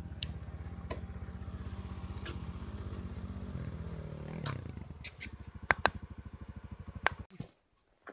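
Enduro motorcycle engine idling with an even pulsing beat, a few sharp clicks near the end, then the engine is switched off and stops abruptly about seven seconds in.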